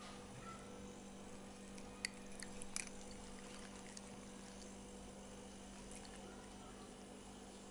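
Siamese cat licking and chewing soft food from a spoon: a few faint wet clicks and smacks about two to three seconds in, over a steady low hum.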